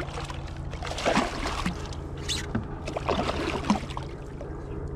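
Water splashing and sloshing beside a kayak as a hooked bass is reeled in and landed, in a few irregular bursts over a steady low hum.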